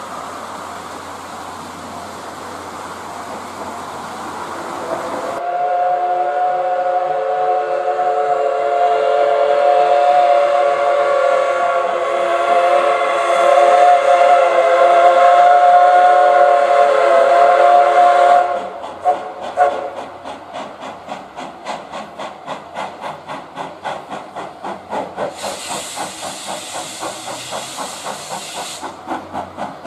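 Steam locomotive sounding one long whistle blast of about thirteen seconds, a chord of several tones, after a few seconds of steady hiss. Then it starts chuffing at an even beat, with a few seconds of sharper steam hiss near the end.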